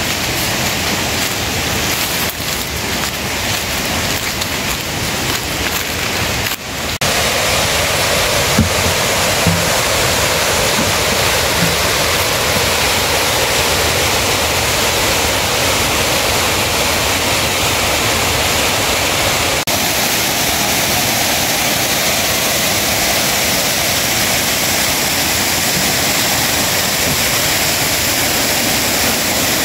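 Steady rushing of water, with a sudden step up in loudness about seven seconds in and a brief dropout near twenty seconds.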